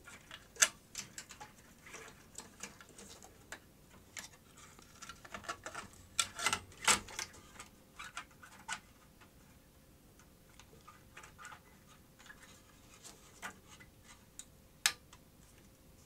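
Irregular clicks, taps and knocks of a power supply circuit board being fitted back into a DVD recorder's metal chassis, its cable plugs pushed into their connectors. There is a sharp click about half a second in, a cluster of louder knocks around six to seven seconds in, and another sharp click near the end.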